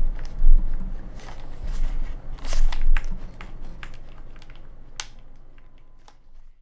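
Typing on a MaiBenBen MKD04-B1 mechanical keyboard with Cherry MX Red switches: irregular keystroke clicks, with a louder thump about half a second in. The strokes grow sparser and fainter toward the end.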